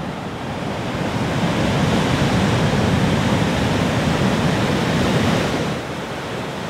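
Sea surf: a wave breaking and washing in, swelling over the first couple of seconds, holding, then fading away.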